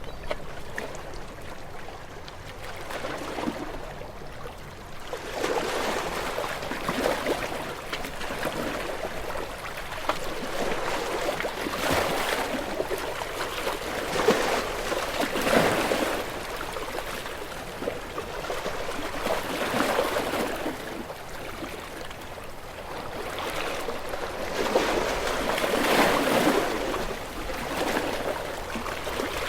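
Ocean waves breaking and washing in, the rush of surf swelling and falling back every few seconds, with the biggest surges about halfway through and near the end.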